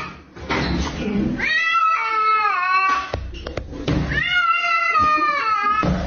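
A domestic cat yowling in long, drawn-out meows: two main calls, each falling in pitch at the end, with a couple of short sharp clicks between them.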